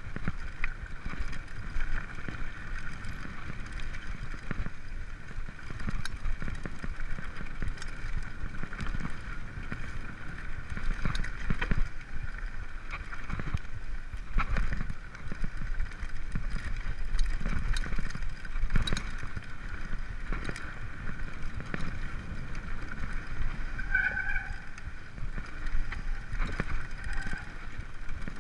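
Mountain bike ridden over a bumpy dirt singletrack: continuous rattling and knocking of the bike over the rough ground, with tyre noise and a low wind rumble on the camera's microphone. Two short squeaks come near the end.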